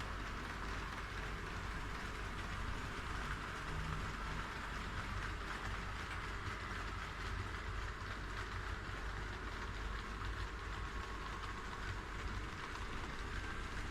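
HO scale model train running on KATO Unitrack: a steady rolling noise of wheels on the rails and the small motor.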